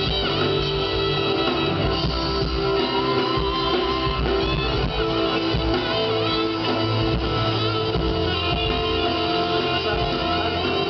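A live band playing through a PA system during a sound check, a guitar prominent over steady bass and held chords.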